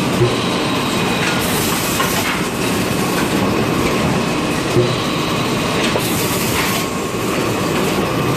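Toilet roll and kitchen towel bundling packaging machine running, with its conveyors moving packs of rolls: a steady mechanical clatter, a knock about every four and a half seconds, and two brief hisses.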